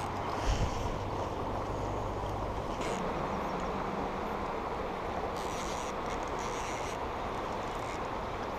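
Steady rush of river current flowing over a rocky riffle, with a brief low bump about half a second in and a couple of soft, short hissing rustles around the middle.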